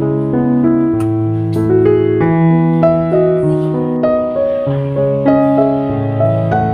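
Background piano music, a slow melody over held notes.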